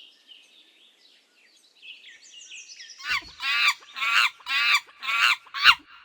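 Gopher calling: faint, high chirps at first, then a run of about five loud, sharp calls about half a second apart, each sliding down in pitch.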